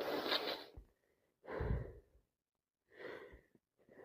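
Three heavy, breathy breaths of a person with a cold between sneezes. The last breath, about three seconds in, is quieter.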